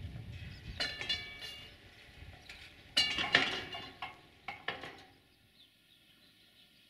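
Freight train wagons rolling slowly over rail joints: pairs of sharp metallic clanks that ring, one pair every second or two, over a low rumble. The loudest pair comes about three seconds in, and the clanks and rumble fade out about five seconds in.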